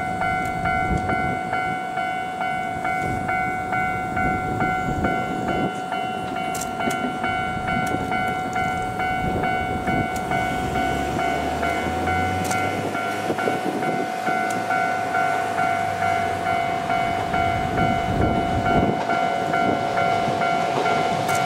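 A level-crossing warning bell rings steadily in an even, repeating clang while a Shizuoka Railway 1000 series electric train approaches, the train's rumble building toward the end.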